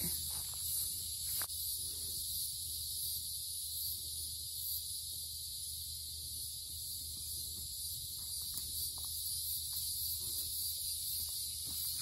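Steady, high-pitched chorus of insects in the trees, an unbroken drone, with a few faint clicks and rustles.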